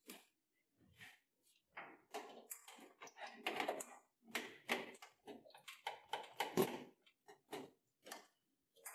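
Irregular clicks, knocks and rustles of a power cord being handled, its plug pushed into the power socket at the back of a printer.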